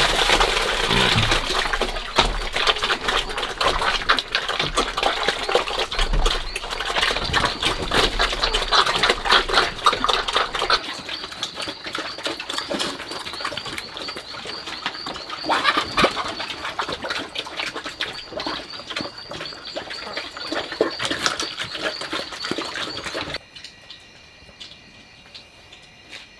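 Pigs eating noisily from a trough, with dense wet chomping and smacking, heaviest in the first ten seconds. It stops abruptly about 23 seconds in, leaving a quiet background of crickets chirping.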